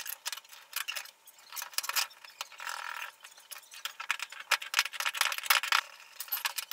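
Metal parts and tools clicking and clinking irregularly as a threaded-rod puller with spacers and a steel angle bracket is fitted onto a lathe spindle to push its bearing off the shaft, with a short scraping stretch about two and a half seconds in.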